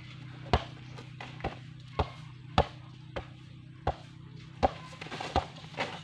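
Basketball dribbled on hard-packed dirt: a sharp bounce roughly every two-thirds of a second, slightly uneven, about nine in all.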